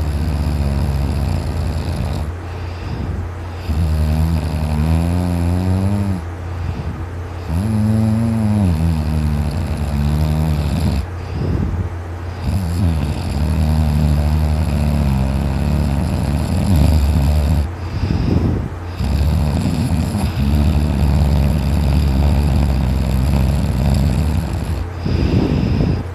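A sleeping man snoring very loudly, each breath a drawn-out snore with a low pitch that wavers, repeating every few seconds.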